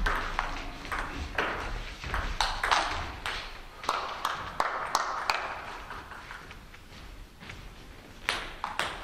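Table tennis ball struck back and forth between bats and the table, a run of quick sharp clicks. The clicking thins out after about five seconds and returns briefly near the end.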